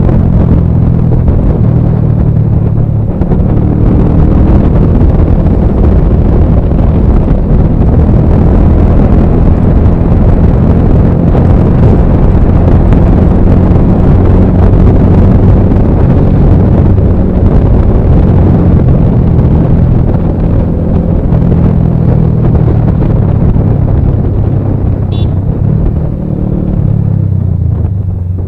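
Bajaj Pulsar 220F's single-cylinder engine with a Race Concepts full-system exhaust running at a steady high cruise, with heavy wind rush on an unshielded action-camera microphone. The engine note eases off a little near the end.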